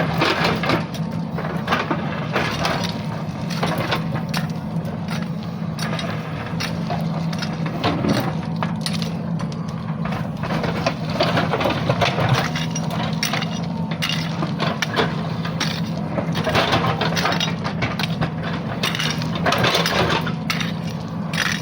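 JCB 3DX backhoe loader's diesel engine running steadily under load, with frequent sharp cracks and clanks from the bucket and arm breaking into and scraping soil and stones.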